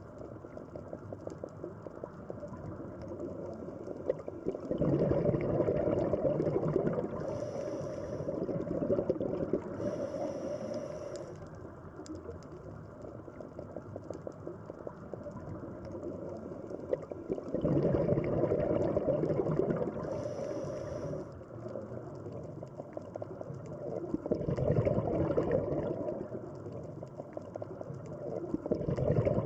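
Scuba diver breathing through a regulator underwater: several bursts of gurgling exhaled bubbles a few seconds long, some with a brief hiss of inhaled air, between stretches of quieter underwater hiss.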